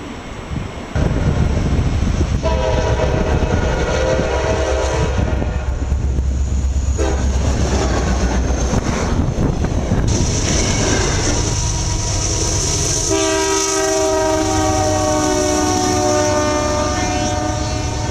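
Train horn sounding a chord twice over the steady rumble of a passing train: a blast of nearly three seconds, then a longer one starting about two-thirds of the way through.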